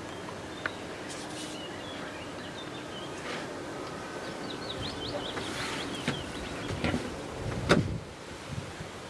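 Footsteps swishing through dry meadow grass. Halfway through come a few short high chirps, and near the end a single sharp knock that is the loudest sound.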